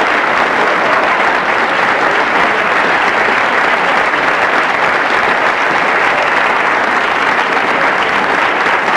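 Steady, dense applause from an audience, an even clatter of many hands clapping without pause.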